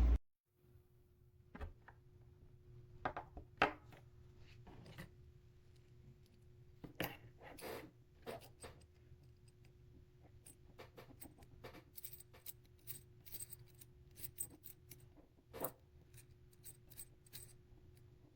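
Faint, irregular clicks and light clinks of small hard objects being handled, a few louder ones scattered through, over a faint steady hum.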